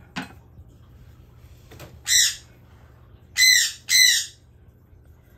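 A bird squawks three times, high-pitched: once about two seconds in, then twice in quick succession. A sharp click comes just before, near the start.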